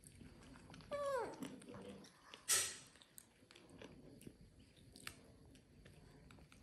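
Baby macaque giving one short call that falls steeply in pitch about a second in, with small clicking sounds of chewing on grilled corn kernels. A brief rustling noise comes about halfway through.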